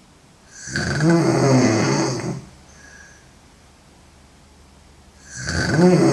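A woman snoring loudly: two long snores about four and a half seconds apart, each with a low, wavering pitch, the second starting about five seconds in.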